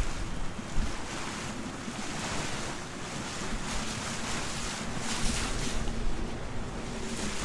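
Choppy water rushing and slapping with wind buffeting the microphone, from a boat under way. A faint steady hum joins in about two and a half seconds in.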